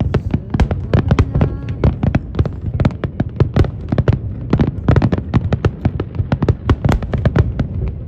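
Fireworks going off in a rapid, dense barrage: sharp cracks and bangs several times a second over a continuous deep rumble.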